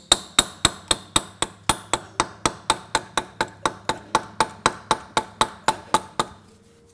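Light, rapid hammer taps on the thermostat housing of a Mercedes M130 six-cylinder engine, about four a second, each with a short metallic ring, working the corroded housing loose from its gasket and studs on the cylinder head. The tapping stops shortly before the end.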